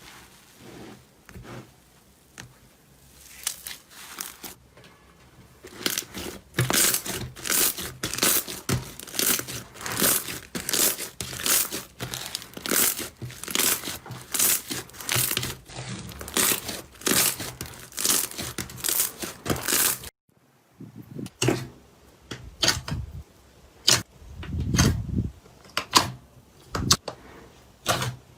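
Slime being squeezed and pressed by hand, giving repeated crackling pops, about two a second at its busiest. The sound stops abruptly about twenty seconds in, and the pops that follow are sparser.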